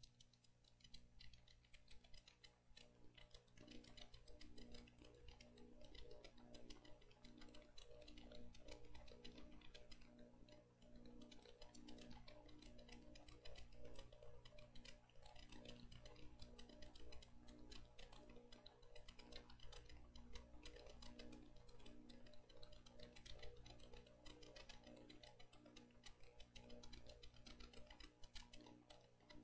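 Near silence: faint room tone with a soft, regular ticking.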